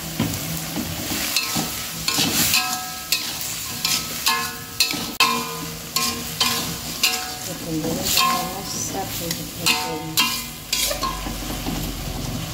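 Metal spatula stirring and scraping lamtoro beans in a sizzling metal wok, with repeated clanks against the pan that set it briefly ringing.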